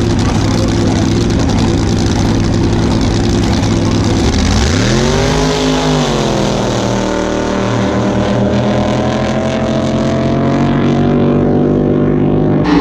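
Racing jet drag boat engines running loud and steady at the start line. About five seconds in they rev hard at the launch, the pitch sweeping sharply up, easing back slightly, then climbing slowly as the boats run down the course.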